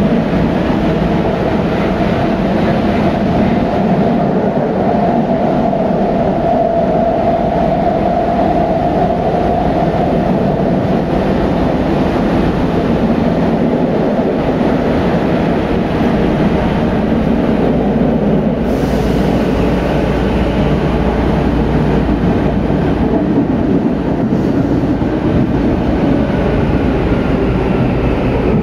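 Tokyu 8500 series train with Hitachi traction motors heard from inside the car, running in the subway tunnel: steady motor and wheel-on-rail noise with some clickety-clack. The hiss brightens suddenly about two-thirds of the way in.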